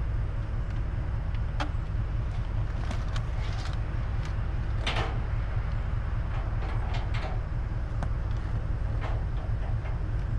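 Scattered metallic clicks and clatters, as of trailer hardware being handled, over a steady low rumble.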